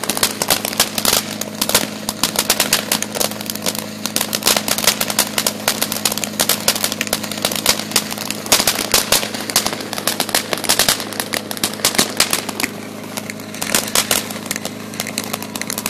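Consumer fireworks crackling: a fast, irregular, continuous stream of small sharp pops and crackles, easing off briefly about three-quarters of the way through before picking up again.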